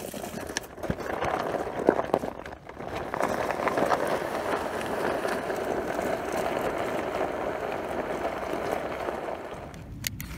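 Heavy 6-mil plastic silage tarp rustling and crinkling as it is unrolled across gravel, with a few sharp knocks in the first couple of seconds.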